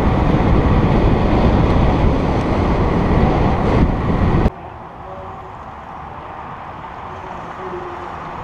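Heavy, steady wind noise on the microphone of a camera moving at cycling speed. It cuts off abruptly about four and a half seconds in, giving way to a much quieter outdoor background.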